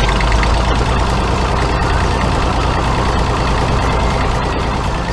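Tractor engine running steadily at a constant pitch.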